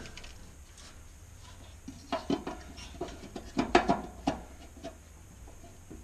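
Light plastic clicks and rustling from hands working a light's bulb socket and its wiring, in two short clusters about two seconds in and again just before the end.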